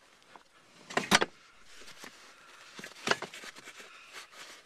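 A car seat with a metal extender bracket bolted under it being handled into place on the floor. There is a sharp double clunk about a second in and a lighter knock about three seconds in, with small clicks and rustles of handling in between.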